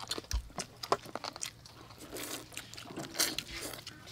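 People biting into and chewing fried chicken: a string of short crunches and mouth clicks.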